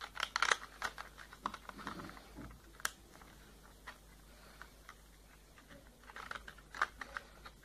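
Thin plastic strips cut from a tennis ball can clicking and crackling as they are bent and woven over and under one another. The clicks come in irregular clusters with quieter gaps between.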